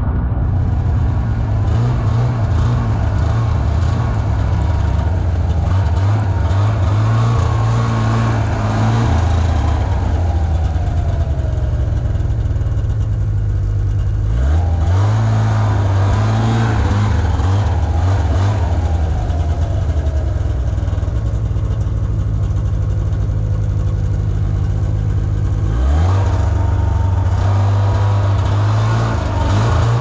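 Snowmobile engine running on the move. The revs ease off partway through, then climb sharply about halfway through and again near the end.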